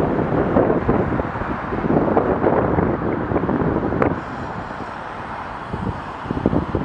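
Wind buffeting the microphone of a camera on a moving bicycle, rising and falling in gusts, with a sharp click about four seconds in.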